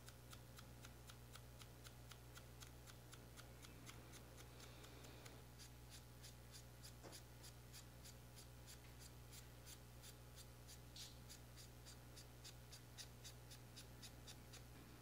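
Near silence: a low steady room hum with faint, even ticking about four times a second, and a brief soft rub about four to five seconds in.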